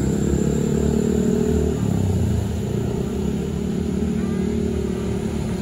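A tour bus's diesel engine running loud and steady as the bus passes close by, its deep note dipping a little partway through.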